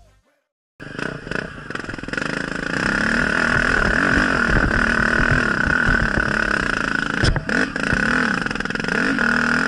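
Off-road motorcycle engine running as the bike is ridden over rough ground, heard from on the bike, its pitch rising and falling as the throttle is worked. It cuts in suddenly about a second in, and there is a single sharp knock a little after seven seconds in.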